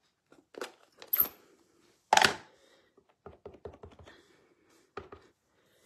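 Clicks and knocks from handling a clear stamp, its plastic packaging and an acrylic stamp block on a craft mat. A few sharp knocks, the loudest about two seconds in, then a run of light, quick taps a little over three seconds in.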